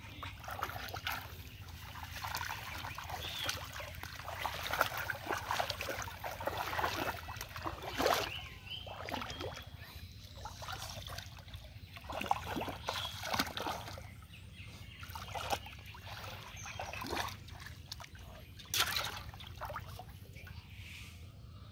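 Shallow muddy water splashing and sloshing irregularly as someone wades and gropes through it by hand, with louder splashes about eight seconds in and again near nineteen seconds.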